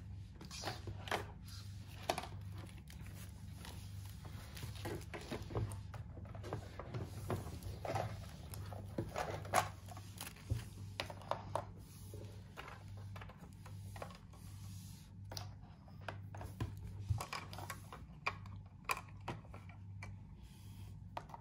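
Scattered light clicks and taps of small plastic doll toys and play dishes being handled, over a steady low hum.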